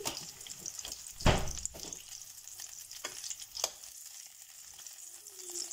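Chicken seekh kebabs sizzling in hot oil in a non-stick frying pan, a steady high hiss. A few clicks and knocks of a fork against the pan as the fried kebabs are lifted out, the loudest knock about a second in.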